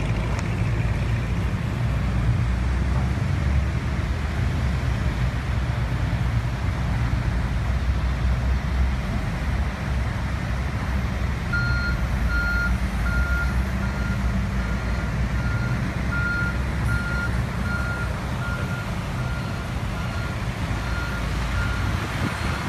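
Low, steady rumble of vehicle engines in slow traffic. About halfway through, a vehicle's reversing alarm starts beeping at an even pace, about one and a half beeps a second.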